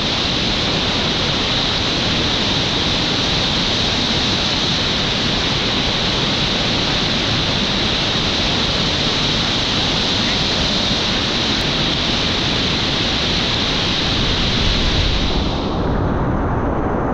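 Loud, steady rush of whitewater: a river pouring over a drop into churning rapids, heard right at the water's surface. About fifteen seconds in, the sound turns duller as its upper part drops away.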